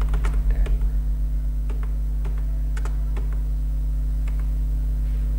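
Computer keyboard keys being typed: a quick run of keystrokes in the first second, then single keystrokes spaced out over the next few seconds, over a steady low hum.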